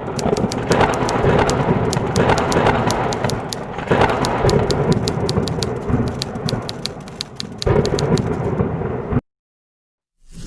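Thunderstorm sound effect: rumbling thunder over rain, with rapid sharp crackles throughout and swells of thunder about a second in, around four seconds and near eight seconds. It cuts off abruptly just after nine seconds, followed by about a second of silence.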